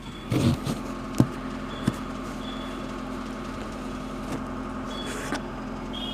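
A vehicle's engine running steadily, with two sharp knocks about one and two seconds in and a few short high chirps.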